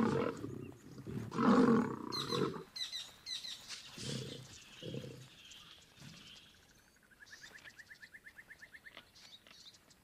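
Two male lions fighting, with loud snarling roars over the first two and a half seconds and two short growls around four and five seconds in. Later a faint rapid trill, about eight pulses a second, runs for a couple of seconds.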